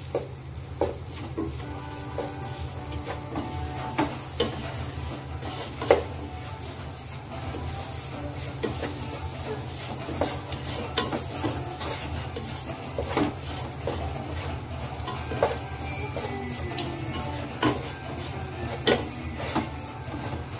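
Wooden spoon stirring and scraping masala as it fries in a nonstick pot: a light sizzle with irregular knocks and scrapes of the spoon against the pan. The spice powders are being fried out until their raw smell goes.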